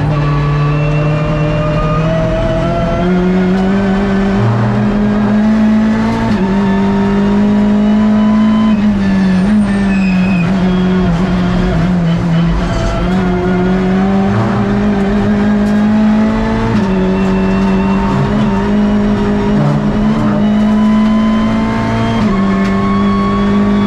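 Hyundai i30 N TCR race car's turbocharged 2.0-litre four-cylinder engine running hard, heard from inside the cockpit. Its note climbs steadily and jumps in pitch several times as gears change.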